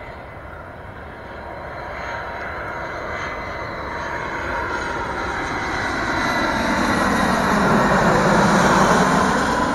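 Airbus A320-family twin-jet airliner on final approach with landing gear down, its turbofan engines growing steadily louder as it comes in low, loudest near the end as it passes almost overhead.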